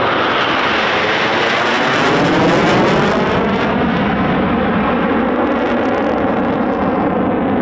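Eurofighter Typhoon's twin EJ200 turbofan jet engines, loud as the fighter passes overhead and goes away. The sound swells to its peak about two to three seconds in with a sweeping, phasing whoosh, then carries on as a steady jet rumble.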